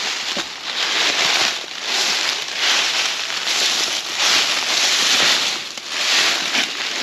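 Footsteps crunching through forest-floor leaf litter at a steady walking pace, about one step a second.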